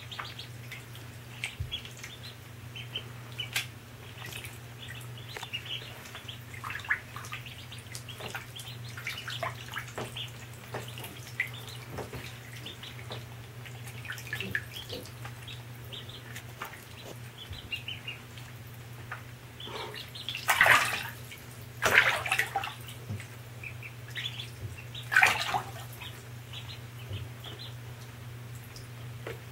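Mallard ducklings peeping, many short high calls over and over, with a steady low hum underneath. About two-thirds of the way in come three louder rushing sounds.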